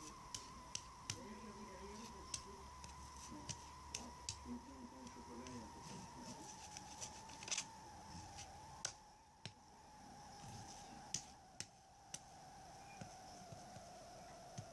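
Scattered sharp clicks at irregular intervals over a faint steady whine that slowly drops in pitch.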